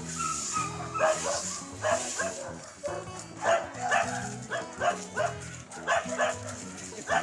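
Dog barking repeatedly, about once a second, over background music.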